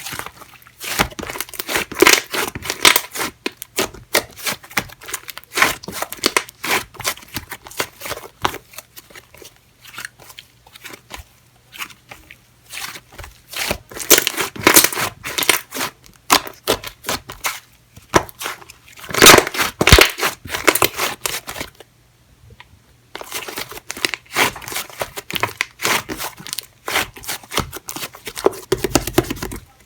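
Clay slime being squeezed, stretched and pulled by hand, giving dense, irregular sticky crackles and pops. There are louder flurries now and then, and a brief pause about three-quarters of the way through.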